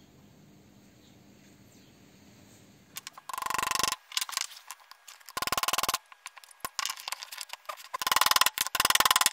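Faint room tone, then from about three seconds in, bursts of rapid light hammer taps driving a steel pin into a cast-iron brake master cylinder, each burst ringing metallically.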